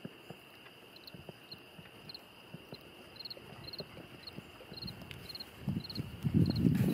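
Insects chirping outdoors, short pulsed chirps repeating about twice a second over a steady high drone, with scattered light knocks and rustles. Near the end a louder low rumbling rustle lasts about a second.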